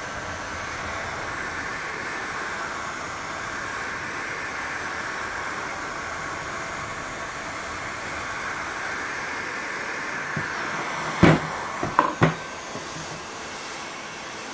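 Handheld electric heat gun running steadily, its fan blowing hot air along the headlight lens edge to soften the lens sealant. About eleven seconds in, three or four sharp knocks as the plastic headlight housing is turned over and set down on the wooden bench, while the heat gun keeps running.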